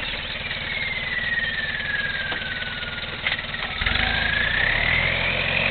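Toyota Land Cruiser 70-series engine running under load as the 4x4 crawls through deep sand, picking up with more throttle about four seconds in. A high whine glides slowly down in pitch and then back up.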